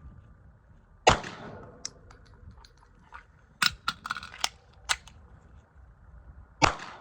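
Two 9 mm pistol shots from a Canik MC9, one about a second in and one near the end, with a run of sharp clicks and clacks between them as the magazine is changed and the gun is handled during a reload drill.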